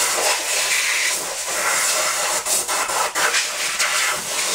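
Compressed-air blow gun hissing in one long continuous blast, blowing chips and grit off a lathe bed's mating surface.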